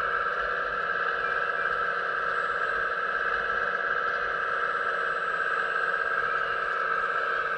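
Hydraulic pump of a 1:15 scale RC Hitachi ZX135US excavator whining steadily while the boom and bucket are worked, its pitch wavering slightly with the load.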